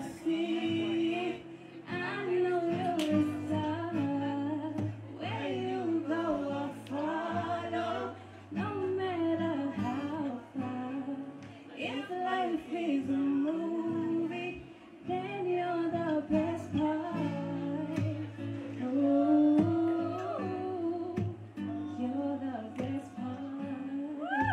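Live acoustic guitar accompanying a woman singing a slow melodic line, the voice gliding and bending in pitch over the guitar's steady chords.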